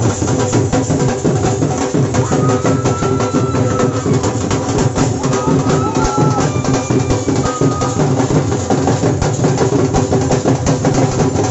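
Dhol drums playing a fast, dense beat for a Himachali Pahari folk dance, with a few short high held notes sounding over the drumming.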